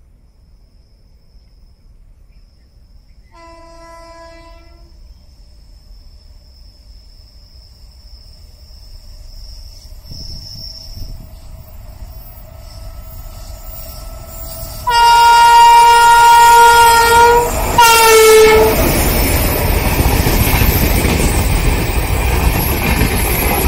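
A three-phase electric goods locomotive's horn: a faint distant blast a few seconds in, then, as the train draws near, a long loud blast and a short second one that drops in pitch. The train then rumbles past close by, passenger coaches rolling over the track.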